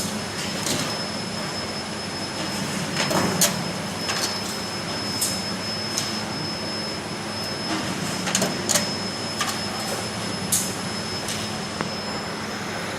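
Automatic linear tunnel-type stainless-steel vial washing machine running: a steady mechanical hum and whir with a thin high tone, broken by short sharp hisses and clicks at irregular moments.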